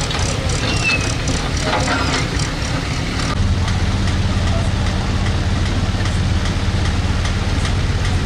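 Rushing floodwater churned by an excavator bucket, with a few voices. After a cut about three seconds in, a heavy diesel engine runs with a steady low hum.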